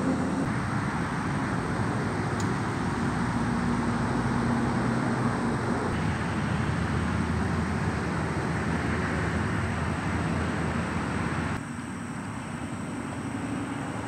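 Steady road traffic noise from cars passing on a road, a low rumble and hiss with faint engine hum. It drops suddenly to a lower level near the end.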